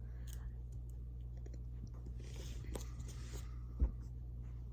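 Faint scattered clicks and rustles of handling, with one soft thump near the end, over a steady low hum.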